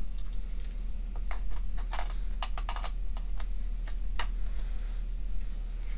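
Scattered light clicks and taps of metal coaxial adapters being handled and threaded together as a handheld radio's antenna port is joined to an SWR and power meter. The clicks come irregularly, most of them between about one and three seconds in, with another near four seconds.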